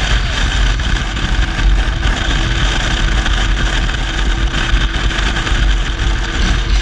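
Vehicle running with a loud, continuous rattling noise, with a faint steady hum joining about a second in.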